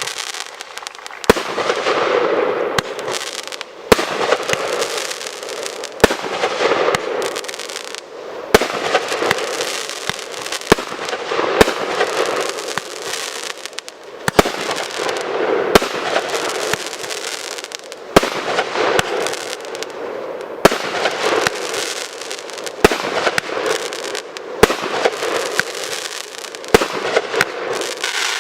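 Fireworks display going off: sharp bangs about every one to two seconds, with continuous noise in between.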